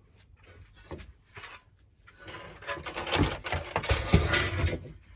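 A lawnmower's recoil starter being handled: two light knocks, then about three seconds of dense clattering and rattling of plastic and metal parts.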